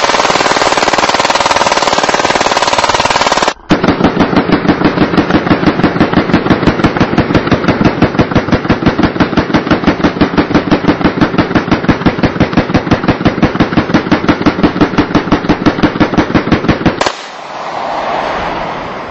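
A full-auto Glock 17 9 mm pistol fed from an oversized drum magazine fires long continuous bursts. A first dense burst is followed about three and a half seconds in by a split-second pause. Then a second long string of rapid, evenly spaced shots runs until near the end, when the firing stops and a softer noise swells and fades.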